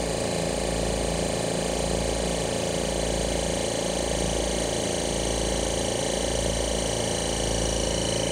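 Oil-less piston dental air compressor running steadily as it pumps up its tank, a constant mechanical hum with a slow throb about once a second.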